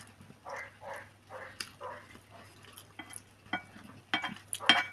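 Soft, wet chewing of a mouthful of mashed potato, then a spoon scraping and clinking against a ceramic plate in the last second or so, the clinks the loudest sounds.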